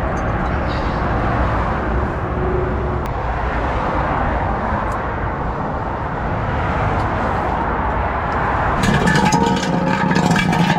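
Steady roar of passing motorway traffic. Near the end, a louder rough sound with a steady pitched hum rises over it for about two seconds.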